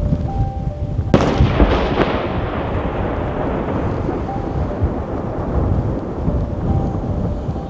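Aerial firework shells bursting: a sharp bang about a second in, another near two seconds, each trailing off into a long fading rumble over continuous low booming.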